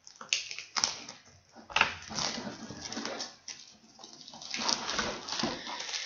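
Plastic shrink wrap crinkling and rustling in irregular bursts as a wrapped stack of cardboard punchboards is handled and opened, with a few sharp clicks.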